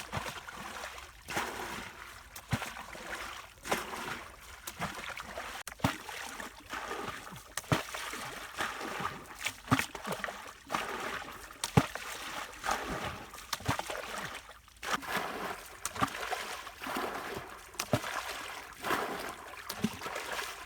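Hands working through shallow muddy water, with irregular splashes and sloshes throughout.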